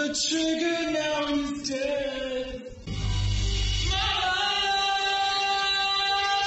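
Music with singing: a melodic vocal line with long held notes in the second half, and a deep low note about three seconds in.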